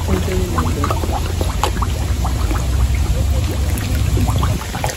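A dense mass of carp and koi splashing and gulping at the water surface in a feeding frenzy: many small splashes and sucking pops, with a low rumble underneath.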